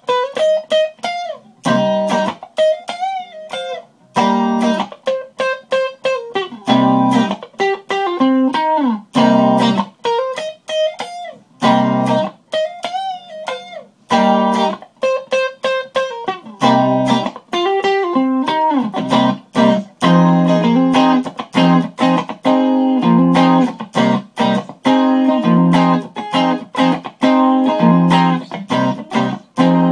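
Fender electric guitar played funk-style, in short chord stabs and bent single-note phrases with brief gaps between them. From about twenty seconds in it settles into a steady, repeating rhythm of chords.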